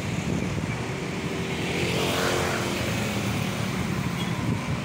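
Road traffic: a motor vehicle's engine drives past close by, swelling to its loudest a little over two seconds in and then fading, over a steady low rumble.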